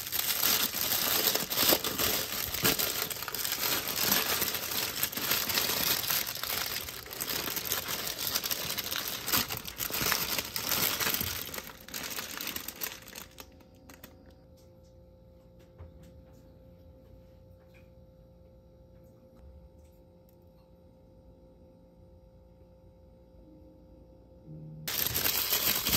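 Thin paper bagel wrapper being unwrapped and handled: dense crinkling and rustling of paper, stopping about halfway through, after which only faint room tone remains.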